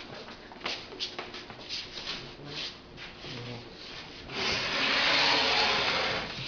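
Light knocks and handling of wooden furniture parts, then about four seconds in a loud scrape of about two seconds as a wooden table panel is slid against wood.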